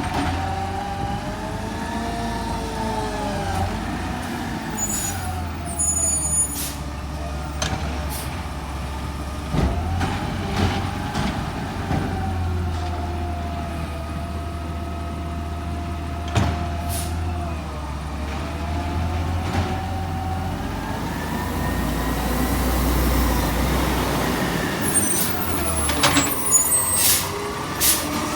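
Garbage truck's diesel engine running and revving up and down while it works, with a whine that rises and falls in pitch several times. A few sharp clanks and short air hisses come through, twice in clusters.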